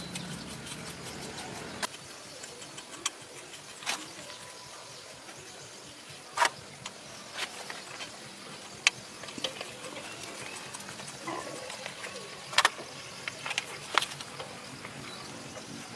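Scattered sharp clicks and knocks at irregular intervals, a dozen or so, over a steady background hiss.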